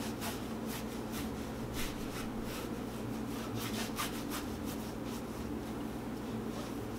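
Paintbrush rubbing over a canvas in a quick run of short, irregular strokes, most of them in the first four and a half seconds, then only a few.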